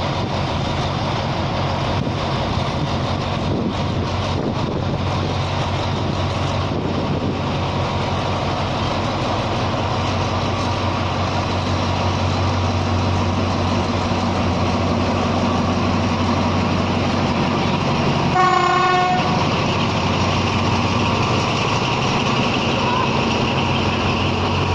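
Alsthom diesel locomotive No. 4407 running with a steady low engine drone that gradually builds as the train pulls out, with one short horn blast about three-quarters of the way in.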